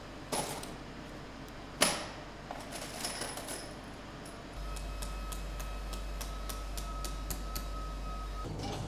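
Sharp metallic clinks and taps of hand tools in a workshop: two distinct knocks in the first two seconds, the second the loudest, then a few lighter ticks. From about halfway a steady electrical hum with a faint thin whine sets in, under scattered quick ticks, and stops shortly before the end.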